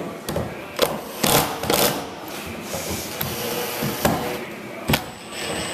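Cordless power drivers run in short bursts, driving screws through wooden bottom planks bedded in 3M 5200 sealant. The running is broken by several sharp clicks.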